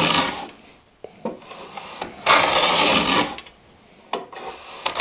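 Stanley No. 78 rabbet plane cutting a cross-grain rabbet in a softwood board, its spur cutter scoring the fibres ahead of the blade. A stroke ends just after the start, a full stroke of about a second comes midway, and another begins at the end; each is a dry hiss of the blade taking a shaving, with small clicks of the plane being repositioned in between.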